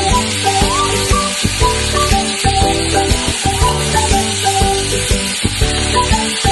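Food sizzling as it fries in hot oil in the cooking pot, under instrumental background music.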